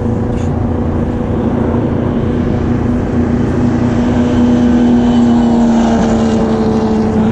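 Race car engines running on the Le Mans circuit: a steady engine drone with a held pitch that swells slightly about four seconds in.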